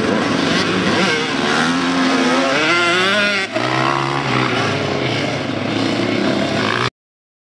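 Dirt bike engines revving up and down as the motorcycles race by, the pitch climbing and falling with each twist of the throttle. A brief break comes about three and a half seconds in, and the sound cuts off abruptly near the end.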